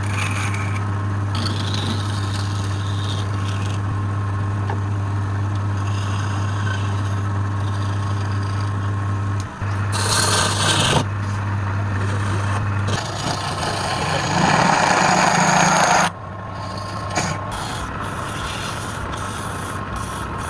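Wood lathe running with a steady low motor hum while a tool or abrasive rubs against the spinning wood. There are two louder stretches of rasping, about ten and fourteen seconds in. The hum stops about thirteen seconds in.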